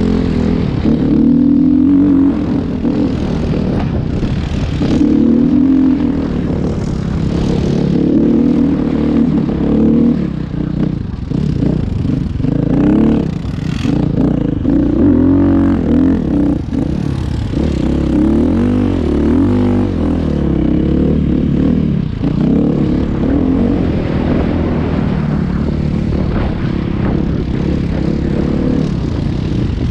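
A vehicle engine running continuously, loud and close to the microphone, its pitch wavering up and down as the throttle changes.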